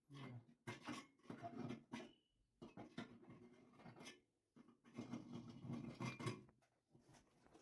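Faint irregular scraping, rubbing and small knocks of objects being handled, in short bursts of about half a second to a second.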